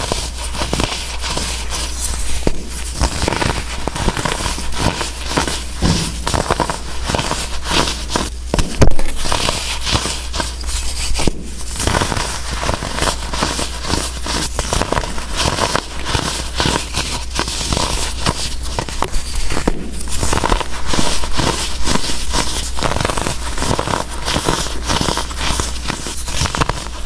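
Dried baking soda blocks being crushed: a dense, continuous run of crunching and crackling, with a sharper crack a little before nine seconds.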